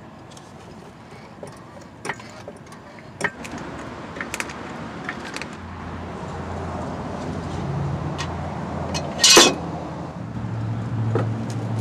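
Floor jack lifting a car: light clicks about a second apart as it is pumped, then a loud metallic clank about nine seconds in as a steel jack stand is set under the frame. A low steady hum builds underneath.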